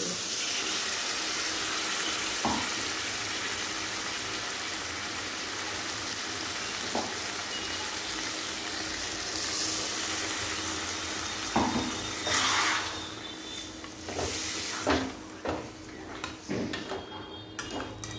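Chicken curry masala sizzling in a kadai as spiced water is poured in: a steady frying hiss that dies down over the last few seconds. A few sharp clinks of the metal spatula against the pan.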